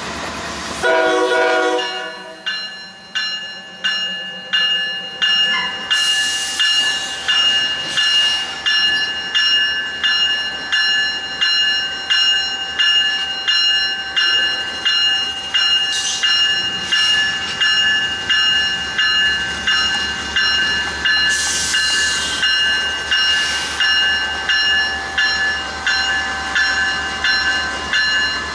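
A bell striking steadily, a little more than once a second, each ring decaying before the next, with a few short bursts of hiss along the way.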